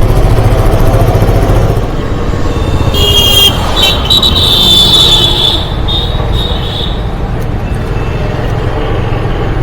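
Road traffic with a steady low rumble. From about three to seven seconds in, a high-pitched vehicle horn sounds in a few short blasts.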